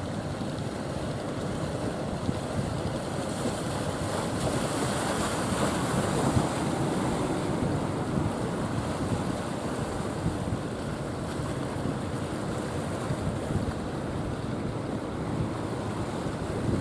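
Rough surf: waves breaking and foaming water rushing in a steady noise, with wind buffeting the microphone. The noise swells louder for a few seconds about five seconds in.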